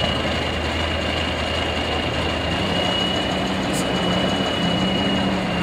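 Heavy diesel engine of a Tatra trial truck running at low revs as the truck crawls over a steep bank; its note rises a little and holds from about halfway through. A thin, steady high-pitched tone sounds over it.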